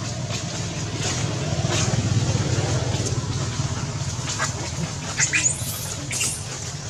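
A steady low rumble, with a few short, high-pitched squeals from a monkey about five to six seconds in.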